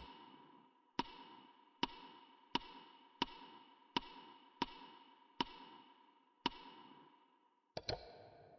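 Faint sharp clicks, each with a brief ringing tail, repeating about eight times a little under a second apart, then a quick double click near the end.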